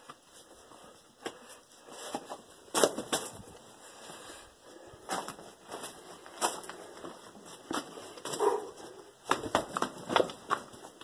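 Footsteps crunching and scraping on gravel and loose rock, uneven in spacing, with a quick run of louder steps near the end.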